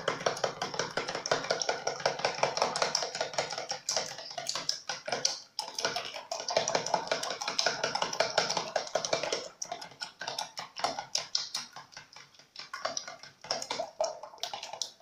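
Raw eggs being beaten by hand in a plastic tub: a utensil clicks and taps rapidly against the plastic sides as it whips through the liquid, with a couple of short pauses.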